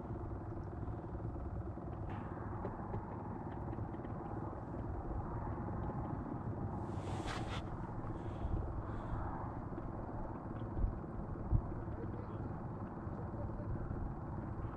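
Steady low rumble of wind on the microphone, with a short hiss about seven seconds in and two soft knocks near eleven seconds.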